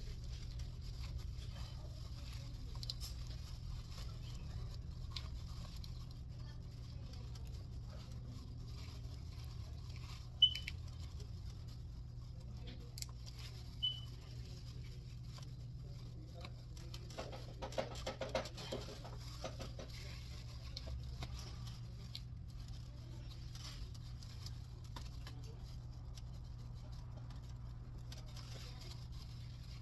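Plastic sheet being handled: light rustling and small scattered clicks over a steady low hum, with a busier stretch of rustling a little past the middle. Two short high beeps sound about ten and fourteen seconds in.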